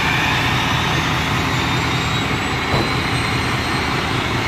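Semi-truck tractor's diesel engine idling steadily under a loud, even rushing hiss, with a single knock about three seconds in.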